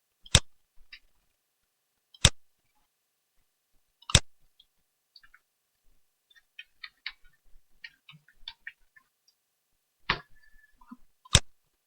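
Computer mouse clicks: single sharp clicks about two seconds apart, with a run of quicker, quieter clicks from a computer keyboard being typed on in the middle.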